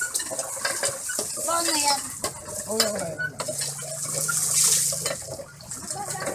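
Water gushing and splashing from a cast-iron hand pump into plastic basins as its handle is worked up and down, with frequent sharp metallic knocks from the pump.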